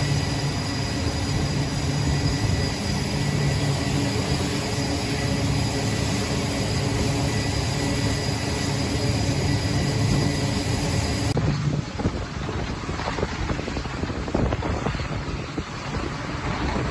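Aircraft engine noise: a steady turbine whine over a low hum, cutting abruptly about 11 seconds in to a rougher, noisier engine sound.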